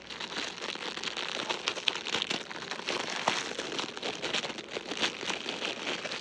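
Plastic packaging crinkling and rustling in a steady stream of small crackles as an opened parcel's contents are unwrapped by hand.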